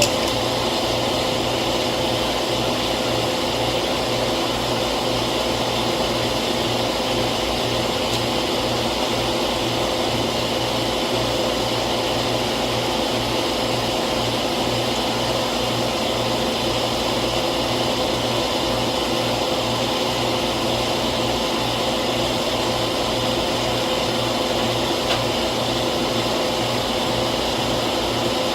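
Refrigerant recovery machine running steadily with a constant hum, pulling the R22 charge out of the system before the compressor is replaced.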